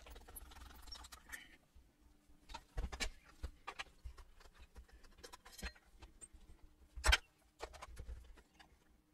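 Screwdriver undoing the handle screws on the wooden case of a transistor radio: scattered small clicks, taps and scrapes of tool and screw, with one sharper knock about seven seconds in.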